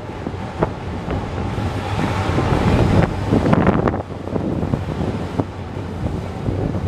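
Busy outdoor station-front ambience: wind buffeting the microphone over a steady low rumble of the city and railway, louder from about two to four seconds in, with a few short knocks.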